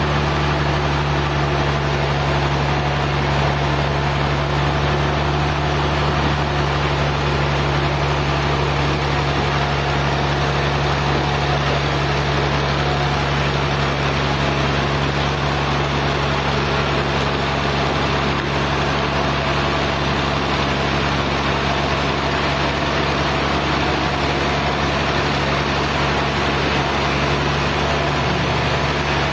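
Steady, unchanging drone of sawmill machinery running, a motor or engine humming at a constant speed.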